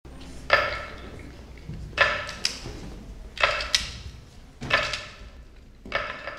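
Live Subli folk-dance accompaniment opening with five slow, evenly spaced struck beats, about one every 1.3 seconds, each ringing out briefly in the hall before the next.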